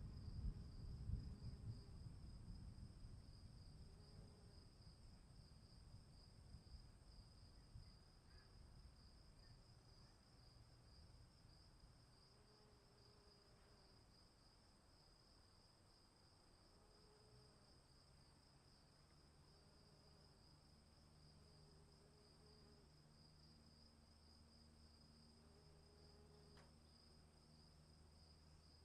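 Faint storm ambience: a low rumble of distant thunder dying away over the first dozen seconds, under a steady high trill of crickets or other insects. A low steady hum comes in about two-thirds of the way through.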